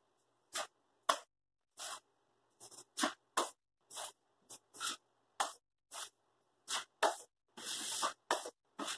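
Drywall knife scraping joint compound across a wall in short repeated strokes, about two a second, with one longer stroke near the end.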